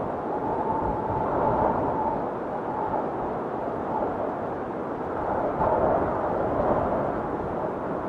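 Steady rushing noise with faint wavering tones that come and go.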